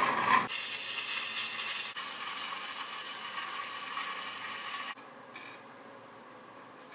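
Plastic dominoes toppling in a long run, a dense rattling clatter played back through a computer's speakers, cutting off suddenly about five seconds in.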